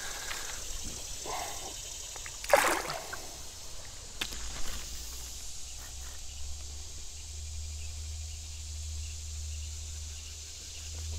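Outdoor creek-side ambience: a steady high hiss, a brief rush of noise about two and a half seconds in, and a low rumble from about four seconds on.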